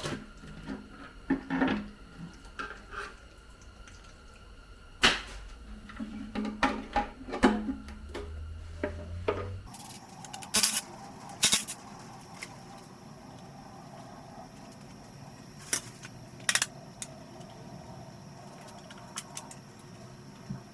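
Scattered metallic clinks and knocks of hand tools and engine parts being handled while pistons are removed from an RB25DET engine block, some with a brief ring.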